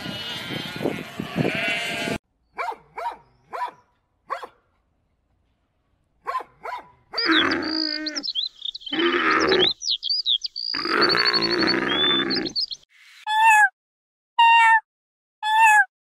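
A flock of sheep bleating over one another, then a llama calling in short bursts with high chirps over it, then a kitten mewing three times near the end.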